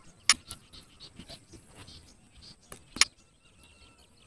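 Two sharp clicks, one just after the start and one about three seconds later, over a faint outdoor background with a faint high whistling call near the second click.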